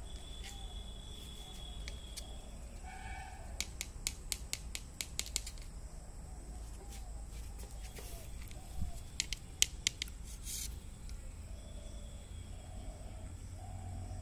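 Two clusters of quick, sharp clicks: one a few seconds in, and a louder one about nine seconds in. Under them runs a low steady hum, with faint short bird calls now and then.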